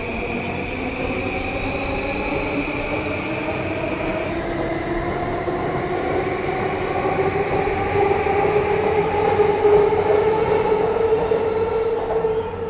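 Electric commuter train pulling out of the platform, its traction motors whining in several tones that slowly rise in pitch as it speeds up. It grows louder as the cars pass, then drops away near the end.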